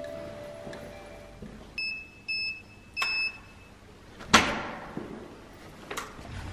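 Electronic door code keypad beeping three times in short tones as a code is keyed in. A loud sharp click follows about a second later, then a fainter click near the end.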